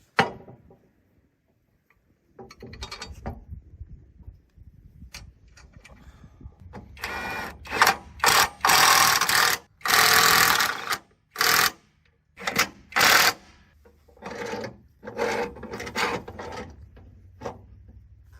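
Intermittent bursts of harsh, crackling metalworking-tool noise, about a dozen of them, mostly short, with two longer ones of about a second and a half, starting about seven seconds in, after quieter handling sounds.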